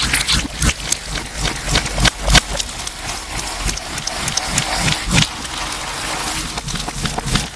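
Slime being squished and worked by hand, with quick irregular wet pops and clicks and a smoother hissing squelch about halfway through. The audio is heavily distorted.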